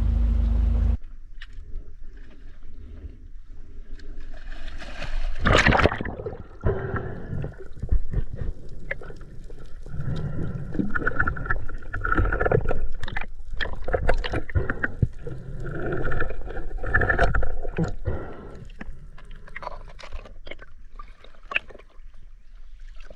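Water sloshing and gurgling against a camera held by a freediver in the sea, with bubbles and small knocks. There is a loud rush of water about five and a half seconds in.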